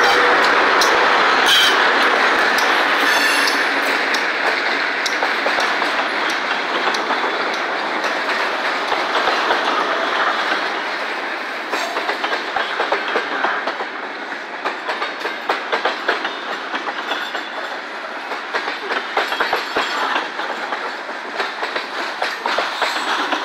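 Freight train passing: the trailing GE B23-7 diesel locomotive goes by first, then covered hopper cars roll past, their wheels clicking over the rail joints. The sound eases a little after the locomotive, and the clicks grow sharper and more frequent from about halfway.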